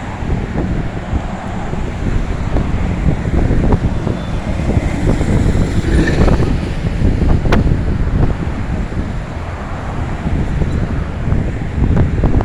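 Wind buffeting the phone's microphone: a loud, gusty rumble that rises and falls.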